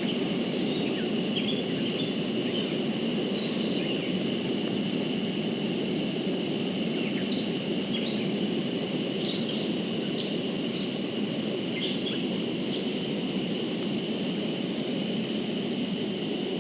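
Steady rushing noise of a gas camp stove burner heating water, over a continuous insect trill and scattered short bird chirps.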